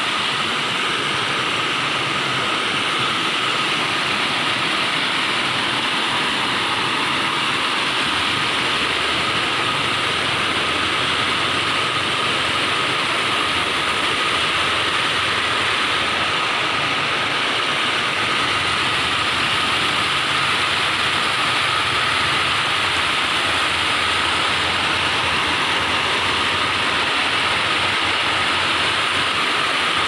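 Water pouring steadily over a low weir, a constant rushing noise.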